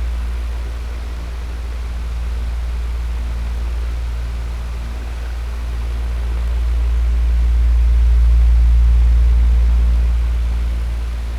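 Electric fan running steadily: a low hum under an even rush of air, swelling and easing slowly, loudest about eight seconds in.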